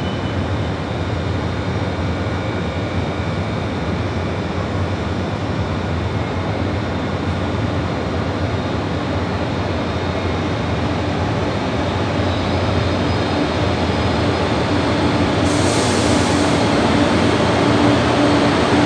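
KTX-Sancheon high-speed train pulling into a station platform, its running noise growing steadily louder as it nears and draws alongside. A steady hum strengthens over the last several seconds, and a high hiss comes in sharply about three quarters of the way through.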